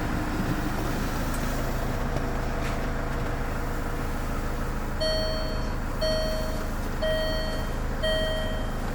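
Land Rover Freelander engine idling steadily just after starting. About halfway through, an electronic beep starts repeating about once a second.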